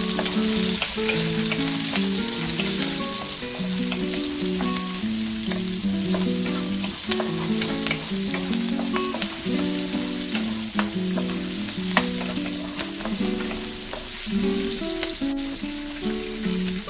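Garlic and onions sizzling in hot oil in a pan over very high heat, stirred with frequent sharp clicks of the utensil against the pan. A melody of held notes plays underneath.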